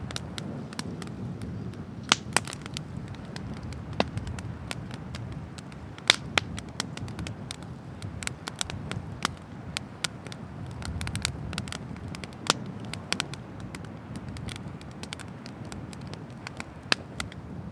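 Firewood burning in a bonfire: irregular sharp pops and snaps, some loud, over a steady low rumble.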